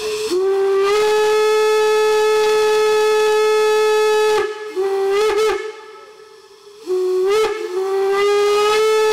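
A steam whistle blows a single steady note with strong overtones. The first long blast lasts about four seconds, then a few short choppy toots follow. After a pause of about a second, a second blast starts and holds steady.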